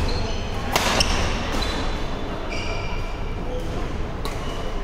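Sneakers squeaking on a hardwood gym floor in short high chirps, with one sharp hit under a second in and a few fainter knocks, over the steady hum of a large hall.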